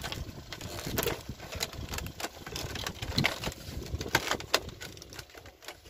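A scatter of irregular sharp clicks and knocks, a few louder ones around the middle.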